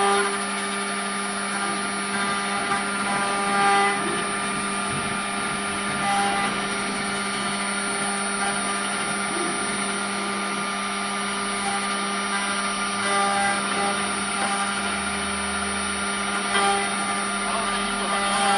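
4-axis CNC wood router running, its spindle whining steadily while an end mill cuts into a square wooden blank, with a few short louder swells as the bit bites.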